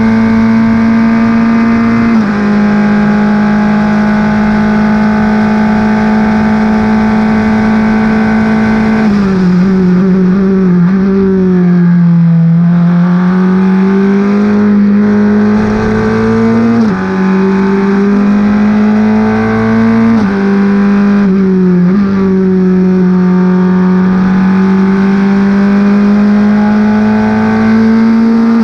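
Formula 4 race car's Honda 2.0-litre four-cylinder engine at full throttle, heard onboard, held at a steady high pitch with a quick gear change about two seconds in. About nine seconds in the pitch drops as the car brakes and downshifts for a corner, then climbs again under acceleration, with more sudden steps for gear changes around 17, 20 and 22 seconds.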